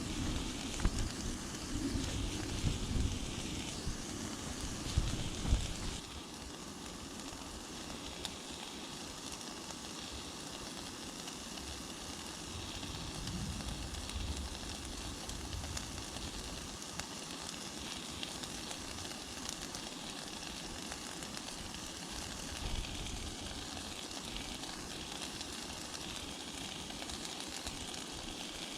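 Food frying over a camp stove, a steady sizzling hiss. For about the first six seconds, low rumbles and a few sharp knocks sit over it.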